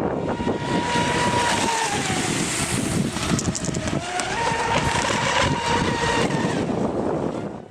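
Radio-controlled model boat's motor whining at a steady pitch that drops for a couple of seconds in the middle and then climbs back, with gusty wind on the microphone.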